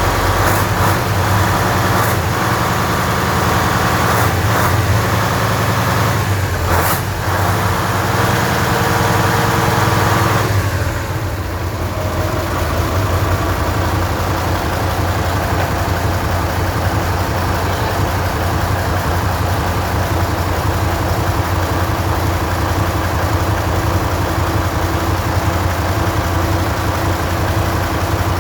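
Nissan ten-cylinder diesel marine engine running steadily, with a few sharp knocks over the first seven seconds. About ten seconds in, it eases down to a quieter, steady idle.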